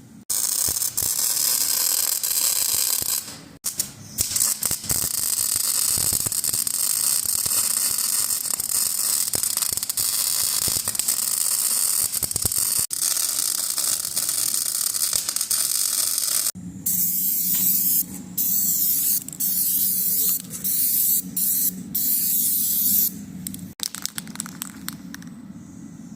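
Welding arc sizzling and crackling on sheet metal, first in one long unbroken stretch, then in a string of short stitch-weld bursts with pauses between them, a low welder hum under the bursts.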